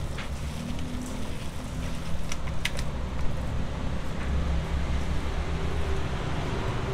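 A hand squeezing and kneading raw minced pork and pig's blood (lawar plek) in a stainless steel bowl, with a few short wet clicks, over a steady low motor rumble.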